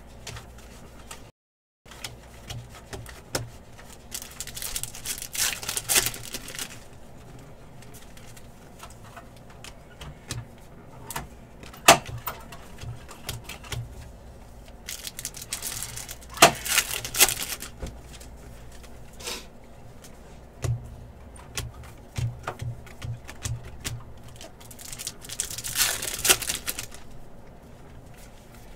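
Trading card packs being torn open and cards handled: three stretches of crinkling wrapper noise, with scattered sharp clicks and taps of cards in between.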